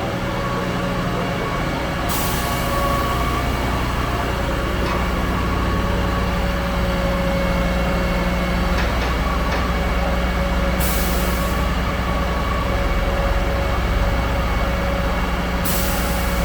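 Concrete pump truck running, its diesel engine giving a steady drone under the pumping load. Short bursts of hiss come about two seconds in, around eleven seconds in, and again near the end.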